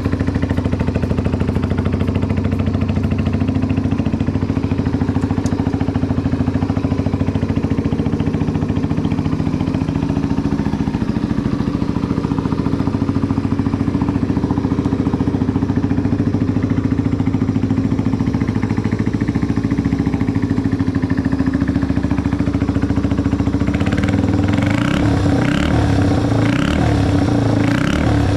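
Yamaha TW125's air-cooled single-cylinder four-stroke engine running at a steady idle. Near the end the revs rise and fall several times.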